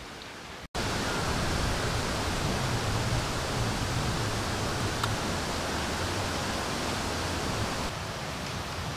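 A steady, even rushing noise, starting just after a brief dropout under a second in and easing slightly near the end.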